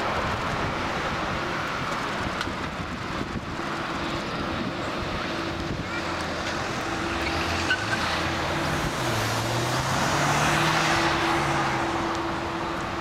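Jet engine noise from a Boeing 767-300ER landing and rolling out on the runway: a steady rushing sound that swells around ten seconds in and then eases off.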